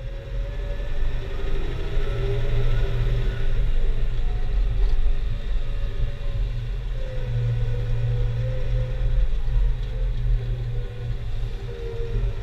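Diesel engine of heavy harvest machinery running steadily, a low rumble with a wavering higher hum over it, building up over the first two seconds and then holding.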